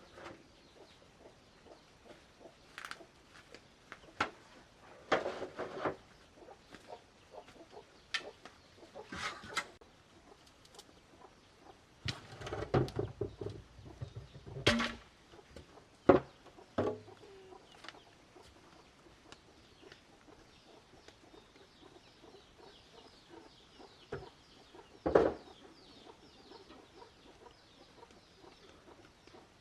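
Chickens clucking on and off, with a few sharp knocks or taps among the calls.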